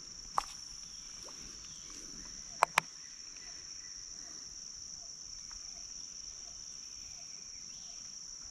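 A steady, high-pitched insect chorus drones without a break. Three sharp knocks stand out above it: one near the start and two in quick succession about two and a half seconds in.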